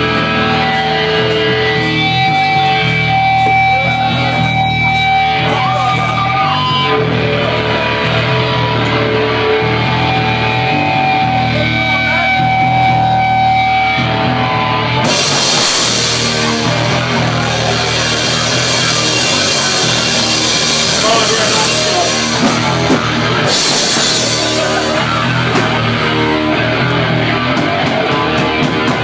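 Electric rock band playing live and loud, with guitars and a drum kit. For about the first half, guitars hold long sustained notes over the drums. About halfway through, the sound thickens and crashing cymbals come in.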